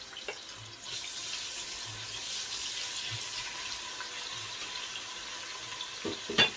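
Chopped onion sizzling in hot olive oil in a stainless steel pot, the sizzle rising about a second in and then running steadily. A single sharp knock near the end.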